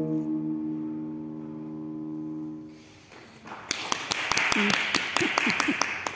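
Tenor saxophone holding a final long note that fades away, then, after a brief pause, an audience applauding.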